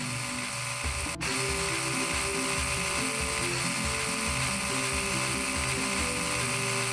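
Toy battery drill running, a steady buzzing whir with a brief break about a second in, over background music.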